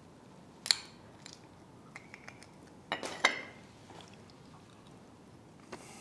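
A spoon cracking the hard caramelized sugar crust of a crème brûlée and clinking against the dish. There is a sharp tap under a second in, a few small ticks, and a louder cluster of cracks and clinks about three seconds in.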